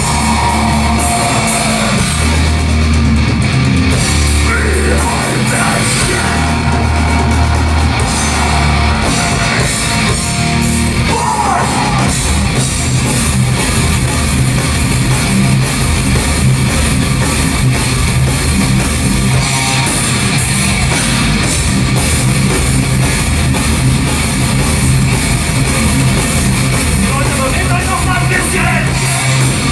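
A thrash/death metal band playing live: distorted electric guitars, bass and drum kit. Heavy low notes are held in long blocks at first, then the riffing turns faster and denser about twelve seconds in.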